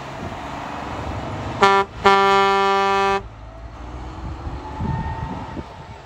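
Grain truck's air horn sounding twice, a short toot and then a held blast of about a second. Underneath is the rumble of the truck driving past.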